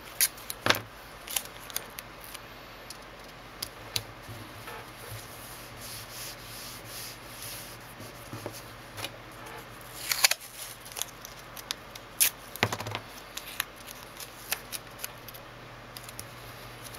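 Masking tape pulled off the roll and torn into short strips, then pressed and rubbed down onto a sheet of drawing paper. Scattered sharp clicks and short rips, the loudest about ten and twelve and a half seconds in, over the soft rustle of hands on paper.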